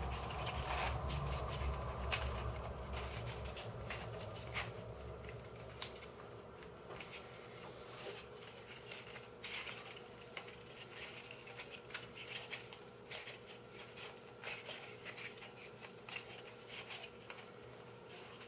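Scattered small clicks, taps and rubbing of 3D-printed plastic puzzle pieces being handled and pressed into a partly built Dino 3x3x3 cube, with a low handling rumble in the first few seconds. A faint steady hum runs underneath.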